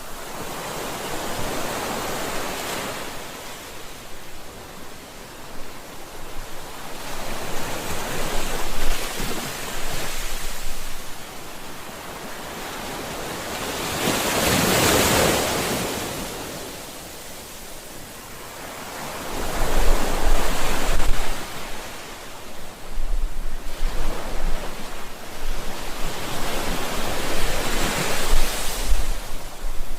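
Ocean waves breaking and washing up the shore: surges of rushing surf that swell and fade every few seconds, the biggest about halfway through.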